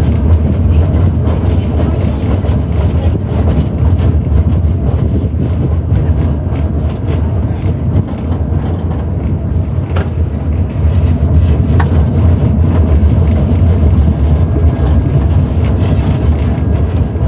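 PCC streetcar rolling along its track, a steady low rumble of wheels and motor heard at the open side window, with wind buffeting the microphone. Two sharp clicks a couple of seconds apart come a little past halfway.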